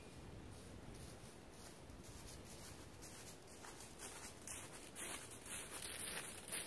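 Footsteps crunching through dry fallen leaves. They are faint at first and grow louder from about three seconds in as the walker comes closer, at roughly two steps a second.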